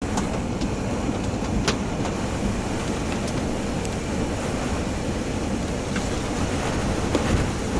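Strong thunderstorm wind rushing and rumbling steadily, with a few scattered sharp ticks.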